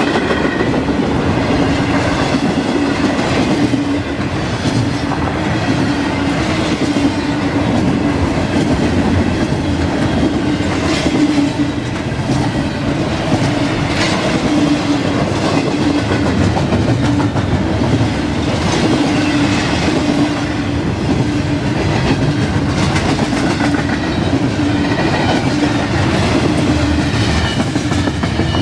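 CSX double-stack intermodal freight train passing close by: the steady loud rumble and rattle of loaded container well cars rolling on the rails, with wheel clacks over rail joints.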